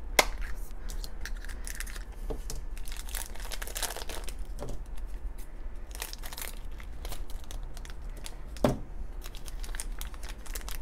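Crinkling and crackling of a shiny plastic blind-bag wrapper as it is cut with scissors and squeezed open by hand, with scattered sharp clicks and a louder snap about nine seconds in.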